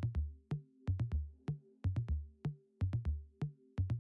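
Electronic background music: a steady drum-machine beat of deep kicks and sharp clicks over a held low synth chord.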